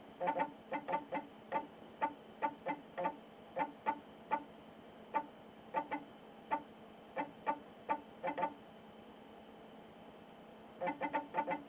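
Original Macintosh's built-in 400K 3.5-inch floppy drive reading the system disk during start-up: irregular bursts of short, pitched clicks and chirps as the head steps and seeks. The clicks pause for about two seconds near the end, then start again.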